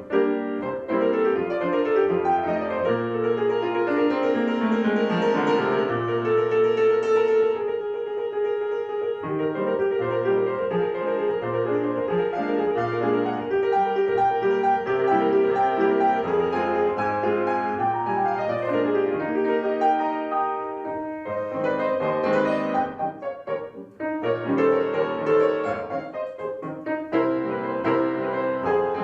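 Solo piano playing a classical piece. A quickly repeated middle-register note is held over a moving bass, broken by runs down and up the keyboard.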